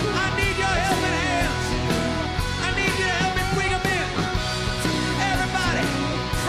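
Rock music with a steady beat and a lead melody bending up and down.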